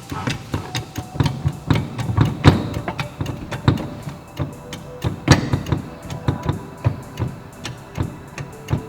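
Background music with a quick run of sharp percussive hits over faint held tones.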